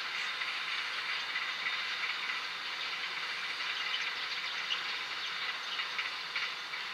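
Container freight train's wagons rolling past on the rails: a steady rushing hiss of steel wheels, with a few faint clicks from about four seconds in.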